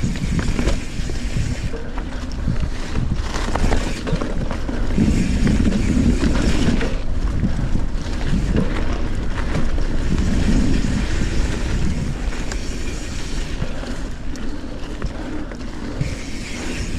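Trek Fuel EX 7 mountain bike ridden down a dirt trail: tyres rolling and the bike knocking and rattling over bumps, under heavy wind rumble on the mountain-mounted GoPro microphone.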